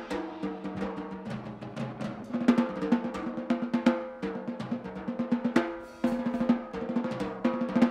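A live instrumental quartet playing: electric guitar, double bass, electric keyboard and drum kit. The drums play busily with many quick strikes over held guitar and keyboard notes.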